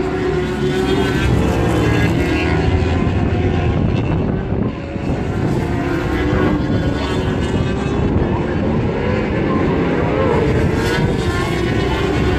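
British Superbike racing motorcycles at racing speed, their engine notes rising and falling as the riders work the throttle and change gear. The sound dips briefly about halfway through.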